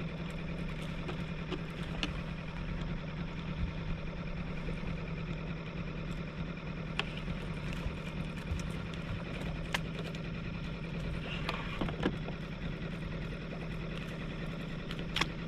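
Boat motor running steadily at trolling speed, a low even hum, with a few sharp clicks scattered through.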